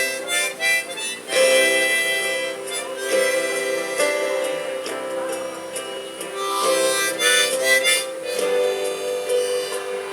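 Gaúcho button accordion (gaita) playing a melody over sustained chords, with a held low tone beneath the moving tune.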